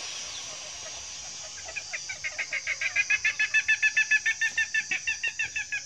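Green junglefowl hen calling from a cage: a rapid run of short, high paired notes, about eight a second, that starts about two seconds in, builds to its loudest in the middle and eases off.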